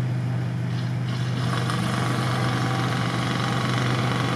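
Off-road truck engines running in deep mud: a steady low engine drone, with engine noise swelling from about a second and a half in as a GAZ-66 truck struggles through the water.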